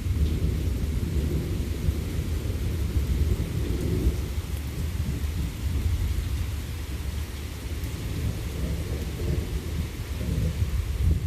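Long rolling thunder rumbling continuously, with the steady hiss of rain underneath.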